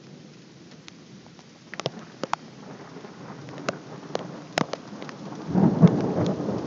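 Raindrops ticking sharply and irregularly close to the microphone over a faint rain hiss, then about five seconds in a loud low rumble of thunder swells up from a close lightning strike.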